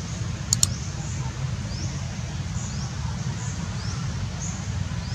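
Outdoor ambience: a short, high, rising chirp repeats about once every second over a steady low rumble, with two sharp high clicks about half a second in.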